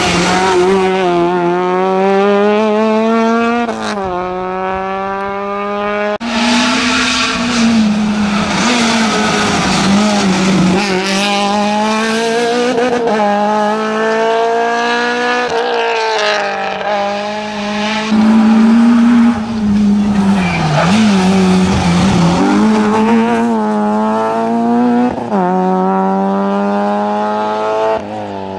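Rally car engines revving hard at full throttle as small hatchback rally cars, among them a Peugeot 206, drive flat out through a stage one after another. The pitch climbs and falls back with each gear change and lift off the throttle, with sudden jumps where one car's pass cuts to the next.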